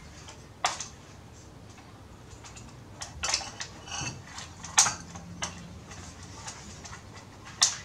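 Plastic case and inner parts of a Toshiba RT-80S radio cassette recorder being moved and taken apart by hand: irregular light clicks and knocks, most of them bunched in the middle, one more near the end.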